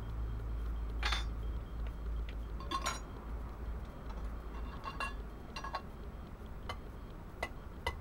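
Irregular metal clinks and taps, about seven, as pliers handle the tin lid of a Swiss Army Notkocher 71 emergency stove and set it down on the burning can to smother the flame.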